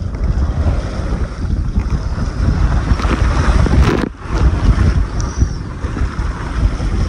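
Strong wind buffeting the microphone over the rush and splash of water along the hull of a Contessa 26 sailboat heeled over and sailing fast through rough seas. The rumble briefly drops away about four seconds in.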